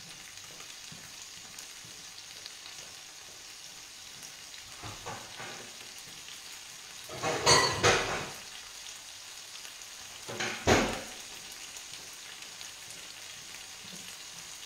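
Gnocchi in a pea cream with guanciale sizzling steadily in a frying pan on a gas hob. Two short bursts of clatter stand out, one about halfway through and another a few seconds later.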